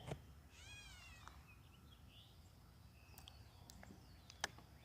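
A faint, quiet background with one short cat-like mew, falling in pitch, about half a second in, followed by a few faint bird chirps and soft clicks.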